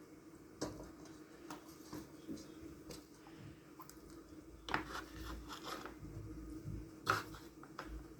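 Hands packing a wet chopped-pepper, garlic and spice stuffing into a fish's belly: soft squishing handling noises with a few sharp little clicks and taps, the loudest about five and seven seconds in. A low steady hum lies underneath.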